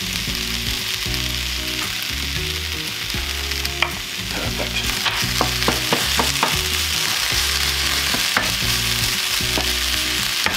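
Vegan mince, onions and peppers sizzling in a frying pan as they are stirred with a wooden spoon. Around the middle the spoon clicks and scrapes against the pan several times in quick succession.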